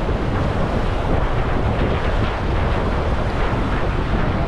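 Wind buffeting the microphone, heaviest in the low end, over waves washing and splashing against the rocks of a jetty.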